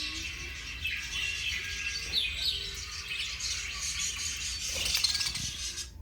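Several budgerigars chattering and warbling, a dense run of quick chirps and short twittering glides; it cuts off suddenly at the end.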